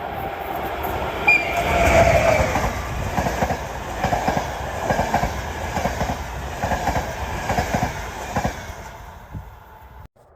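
A train rolling past, its wheels clattering over the rail joints in a regular beat, with a brief high-pitched tone about a second in. The sound fades away near the end.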